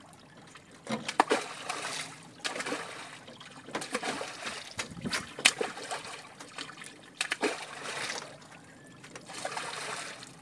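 A hooked fish thrashing at the surface of a lake, splashing in repeated bursts with sharp slaps of water among them.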